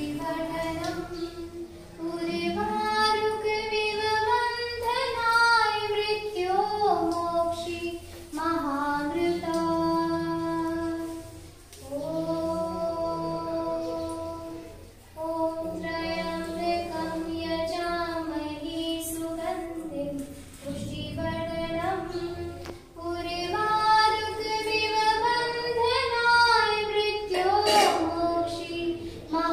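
A high voice sings a slow devotional song in long held, ornamented notes, with a few short breaks between phrases.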